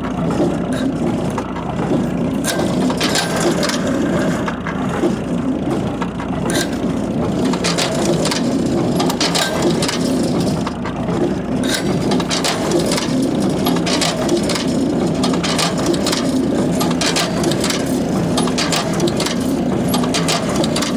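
Old International hay baler test-run on a makeshift driveline: a steady engine drone under frequent irregular clanks and knocks from the baler's working parts.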